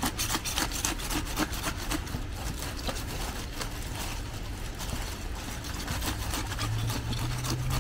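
Scales being scraped off a carp inside a plastic bag: quick, repeated rasping strokes. The carp is still partly frozen and stiff.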